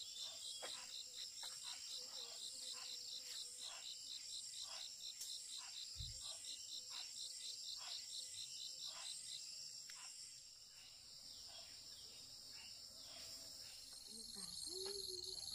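Insects chirping: a cricket-like chirp in an even run of about four pulses a second that stops about nine seconds in, over a continuous high-pitched insect drone.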